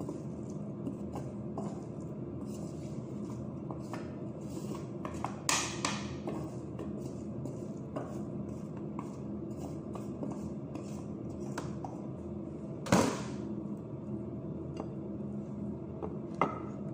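Cooked pasta being scooped and tipped from a metal colander into a glass dish with a spatula: soft scraping and small clicks, with three sharper knocks of the utensils against the dishes, the loudest about two-thirds through. A steady low hum runs underneath.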